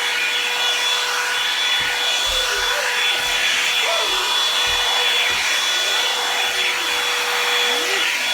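Marble one-step hair dryer brush running, a steady blowing of hot air with a constant motor whine, and a few soft low knocks as it is handled.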